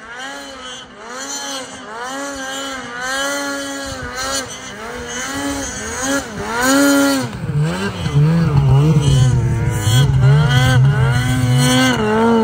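Mountain snowmobile engine revving in repeated rising-and-falling surges, about one a second, as the rider works the throttle climbing through deep powder. It grows louder as the sled comes closer, and from about halfway through the engine note turns lower, heavier and louder.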